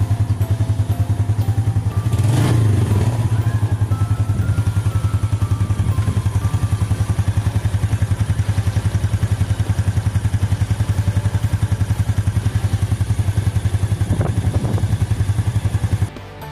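Yamaha Sight's single-cylinder four-stroke engine idling just after start-up, run for a few minutes to circulate fresh oil after an oil change. It picks up briefly about two seconds in, then cuts off suddenly just before the end.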